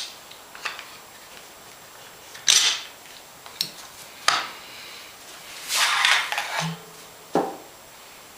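Steel parts of an M1 Garand being handled during disassembly, as the gas cylinder assembly comes off the barrel. Several sharp metal clinks and knocks are heard, with a longer scraping rattle about six seconds in.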